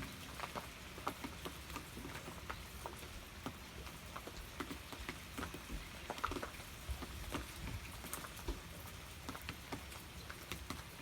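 Steady rain falling, an even hiss with irregular drops ticking and pattering on a hard surface.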